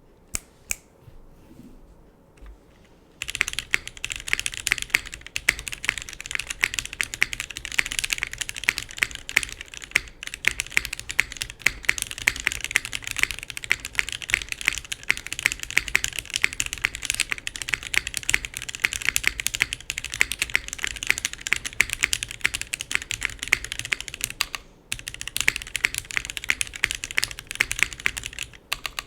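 Fast, continuous typing on a JJW Cloudline mechanical keyboard: vintage Cherry MX Black linear switches lubed with 205g0 and filmed, GMK Striker keycaps, full aluminium plate with O-ring mount, giving a fairly muted sound. A couple of single key presses come first, then steady typing from about three seconds in, with short breaks near the end.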